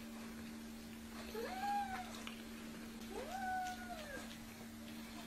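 Ragdoll cat meowing twice, each a drawn-out call that rises and then falls in pitch, over a steady low hum.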